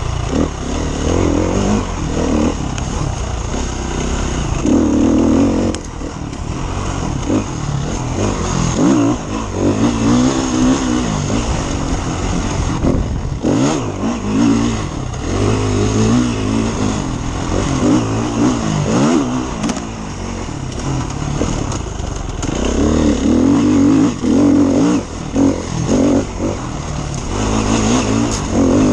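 KTM enduro motorcycle engine heard from on board, revving hard, its pitch rising and falling again and again with throttle and gear changes on a rough dirt track.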